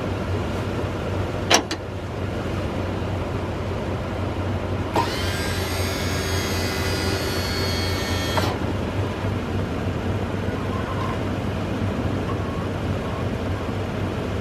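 Pickup truck engine idling with a steady low hum. About a second and a half in there is a sharp click. About five seconds in, an electric motor whines up, runs for about three and a half seconds and cuts off: the Boss V-plow's electric-hydraulic pump.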